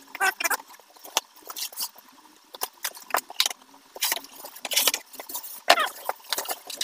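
Cardboard box flaps and styrofoam packing being handled while a monitor box is opened: irregular scrapes, rustles and knocks, with a couple of brief squeaks near the start and near the end.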